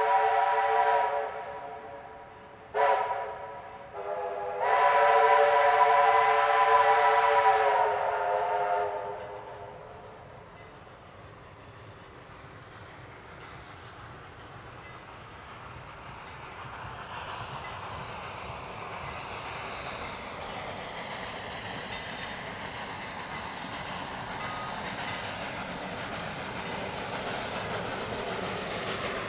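Steam locomotive's whistle sounding a chord of several tones in blasts: one fades about a second in, two short toots follow, then a long blast. After that the steam train approaches, its running noise growing steadily louder toward the end.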